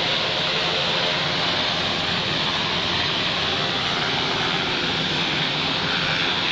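Helicopter descending to land, its engine and rotor making a steady, unbroken noise.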